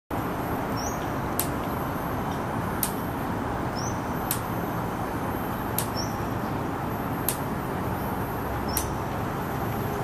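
Male sunbird calling: a sharp, high click-like note about every second and a half, with fainter thin high notes between, over a steady rumble of traffic.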